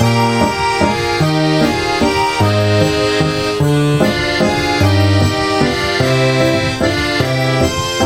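Background music: an accordion playing a lively traditional-style tune, its notes changing quickly over a bass line on a steady beat.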